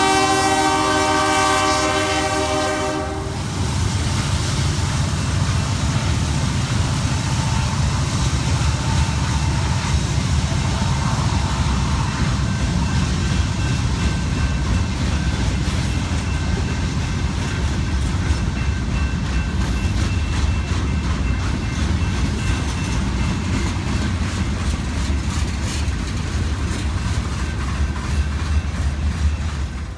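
Nathan K3HL five-chime air horn on a Union Pacific AC44CW locomotive sounding a chord that cuts off about three seconds in. A freight train then runs past with a steady low rumble.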